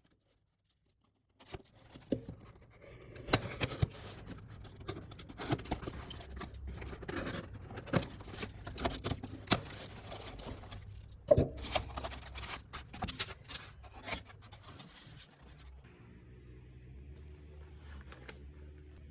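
A cardboard product box and its packaging being opened and handled: scraping, rubbing and sharp clicks of card and plastic. It starts about a second and a half in and dies down near the end, leaving a low steady hum.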